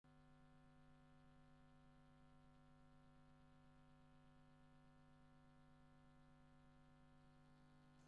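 Near silence with a faint, steady electrical hum.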